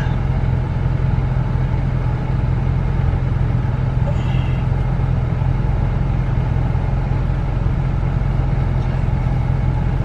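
Camaro's air conditioning blowing steadily inside the car cabin, an even rushing noise with a steady low hum underneath.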